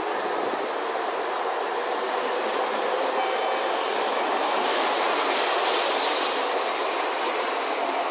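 Tokaido Shinkansen train running, a steady rushing noise that swells a little in the middle.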